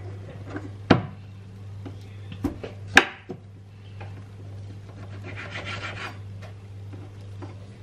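Kitchen knife working raw chicken on a cutting board: a few sharp knocks, the loudest about three seconds in, and a rubbing scrape around five to six seconds in, over a steady low hum.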